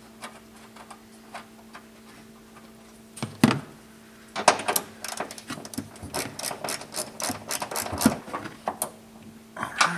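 A ratchet wrench clicking in quick, uneven runs as the nut is run back down onto the ground-cable stud, starting about four and a half seconds in, with one sharper click a second before.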